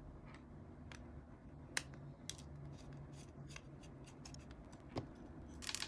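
Phillips screwdriver backing small screws out of an RGB memory heatsink: faint, scattered metallic clicks and scrapes, a sharper click a little under two seconds in and a quick run of clicks at the end, over a faint steady low hum.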